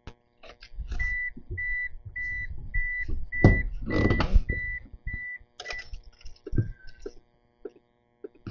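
A Nissan Skyline GT-R R33's in-car warning chime beeping steadily, about eight short even beeps at roughly two a second, which stop about six seconds in. Rustling and a few knocks from inside the cabin sound along with it, and a single shorter, lower beep follows.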